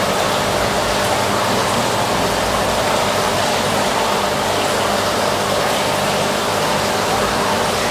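A steady rushing noise, fairly loud and unchanging, with a faint hum beneath it.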